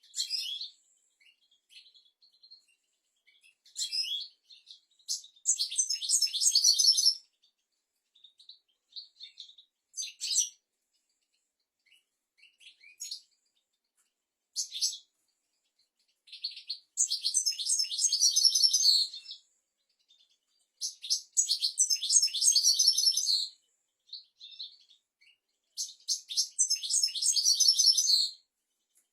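European goldfinch singing: high, rapid twittering song phrases of about two seconds each, four of them, with short single calls and brief pauses in between.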